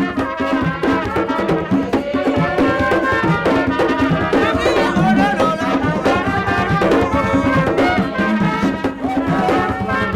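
Music: brass horns playing over fast, steady drumming.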